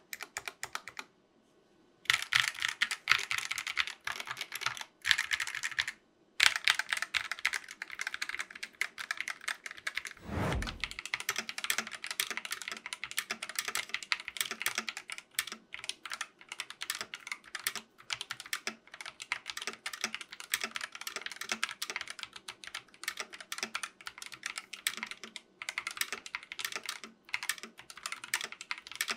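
Fast continuous typing on a GK61 60% keyboard with spray-lubed Gateron optical silver switches and ABS keycaps: a dense stream of key clicks, with a short pause just after the start. A single low thump comes about ten seconds in.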